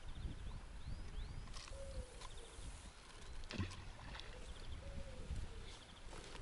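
Birds singing outdoors: several short high chirps and quick trills, with a lower arched call repeating every second or so. Under them a steady low rumble, and a couple of sharp clicks from handling the tackle.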